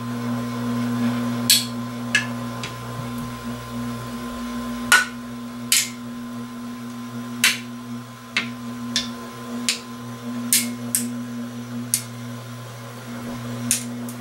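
A treadmill incline linear actuator's small 1/12-horsepower electric motor hums steadily as it drives a homemade press ram down, crushing a can. Irregular sharp crinkles and cracks come from the can as it buckles, about one every second.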